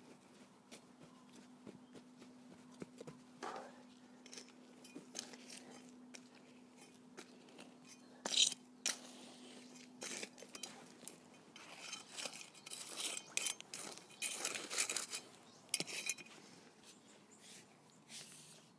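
Hands packing and pressing loose garden soil down by hand: faint, scattered gritty scrapes and crunches, coming thicker in the second half.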